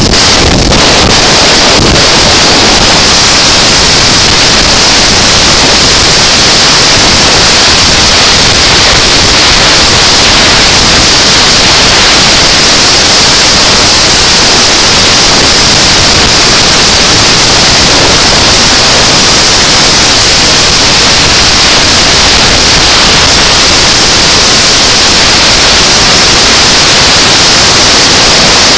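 Wind rushing over the microphone of a camera on a motorcycle cruising at highway speed: a loud, steady hiss-like noise in which no engine note stands out.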